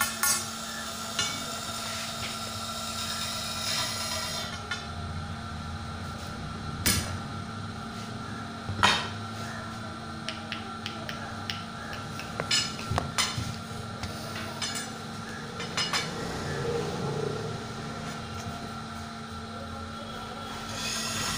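Strips of 12 mm thick glass clinking and knocking against each other and the table as they are lifted and laid down, a sharp knock every few seconds over a steady hum.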